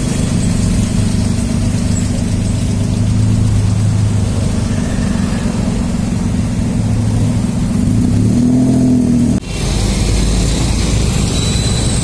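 A motor vehicle engine idling close by, a steady low hum. About nine and a half seconds in it breaks off abruptly and gives way to a broader low traffic rumble.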